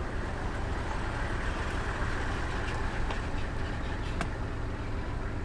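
Safari jeep's engine running steadily, a low even rumble with no change in pitch, with a faint tick about four seconds in.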